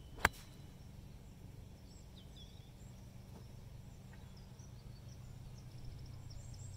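A single crisp strike of an 8-iron on a golf ball, hit from light rough, about a quarter second in. After it comes a steady low rumble with a few faint chirps.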